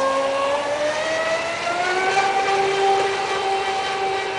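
Brushless motor of a fast electric RC boat on 6S running at high speed: a whine that climbs in pitch over the first two seconds as the boat speeds up, then holds steady.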